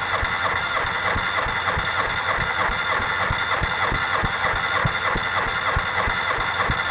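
Starter motor cranking a Nissan four-cylinder petrol engine with its injectors and ignition disconnected, so it turns over steadily without firing, in an even, rapid pulse. This is a compression test of the third cylinder, with the gauge in the spark plug hole climbing to about 15 bar.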